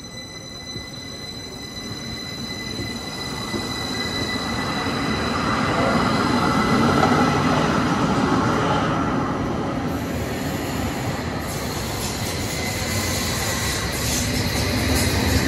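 SBB RABe 514 double-deck electric train pulling away and passing close by. Its steady high electric whine sits over the noise of wheels rolling on rail, which grows louder over the first seven seconds and then stays loud.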